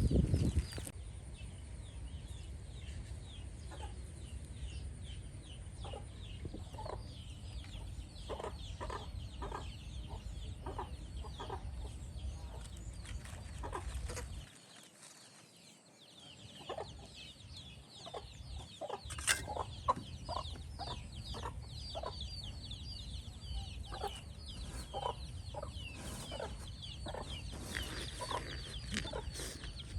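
Chickens clucking, a string of short clucks about a second apart, over many faint high chirps and a steady low rumble that drops away for a moment around the middle.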